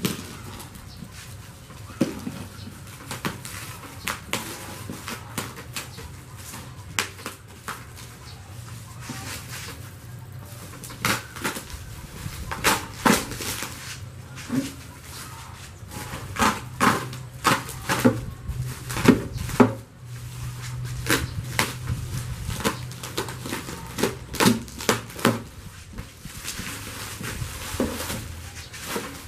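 Bubble wrap and plastic film rustling and crinkling as they are slit with a box cutter and pulled off a cardboard carton, with irregular sharp crackles that come thickest about halfway through.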